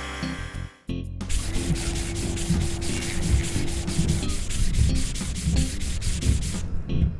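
Cartoon sound effect of a spinning car-wash brush scrubbing a truck: a rough rubbing noise with a fast, regular pulse, starting about a second in and stopping shortly before the end. A short mechanical whirr of the brush machinery comes before it.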